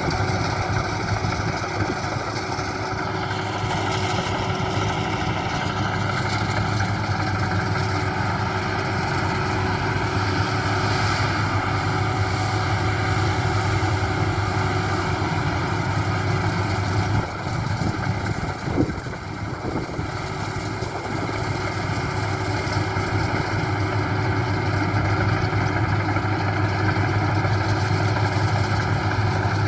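Maxxi Bimo 102 rice combine harvester running steadily, its engine and threshing machinery giving a continuous hum. About two-thirds of the way through the sound dips briefly and there is a single short knock.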